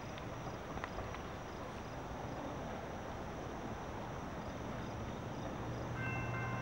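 Insects chirping in an even, repeating pattern over steady outdoor background noise. About six seconds in, the horn of an approaching Norfolk Southern freight locomotive starts sounding, a steady chord of several notes, joined by the low hum of its diesel engines.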